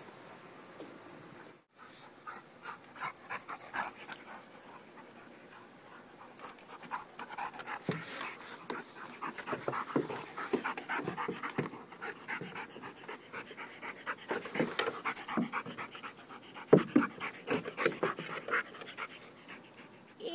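Labrador retriever puppies panting, with many small clicks and taps.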